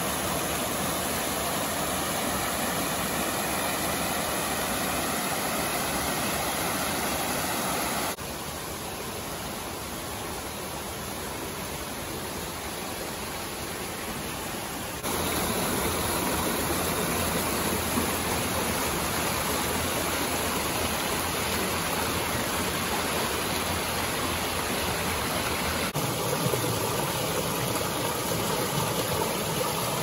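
Small mountain stream rushing and splashing over boulders in little cascades, a steady water sound. It drops quieter about eight seconds in and comes back louder about halfway through, as different stretches of the stream are heard.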